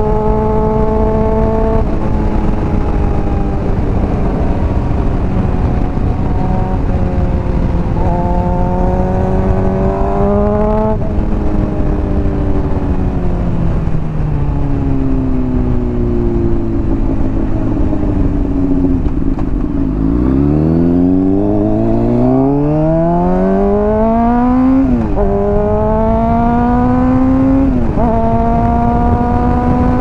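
Honda CBR600RR inline-four through a Hotbodies Stinger slip-on exhaust, under way. Revs rise and drop at upshifts, then fall off for several seconds as the bike slows. About two-thirds of the way in, it accelerates hard, the note climbing steeply through two quick upshifts near the end, over steady wind rush.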